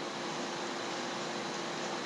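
Steady background hiss with a faint constant hum and no distinct event: room tone or recording noise.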